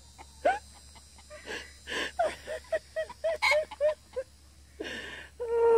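Chicken clucking in a rapid run of short calls, with a few breathy rasps between them and a longer drawn-out call near the end.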